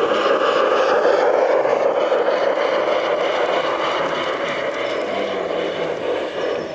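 LGB garden-scale model train with coaches running past on the track: a steady rolling noise of wheels on rail, loudest about a second in and easing off toward the end as it goes by.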